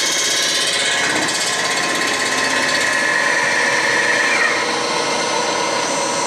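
Milling machine decking the cast-iron deck of a Ford Model A engine block: the spinning face cutter makes a steady, loud mechanical cutting noise. A high tone in it stops about four seconds in as the cutter clears the block, and the machine keeps running.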